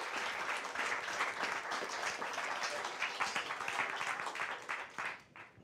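Audience applauding, the clapping thinning to scattered claps and dying away near the end.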